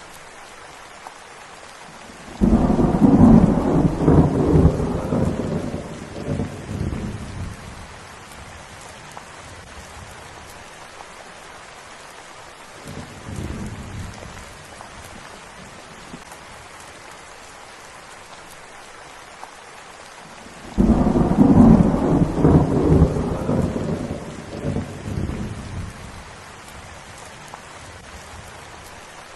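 Steady rain with rolling thunder: two loud rumbles, one a couple of seconds in and one about two-thirds of the way through, each starting suddenly and dying away over about five seconds, and a fainter, shorter rumble near the middle.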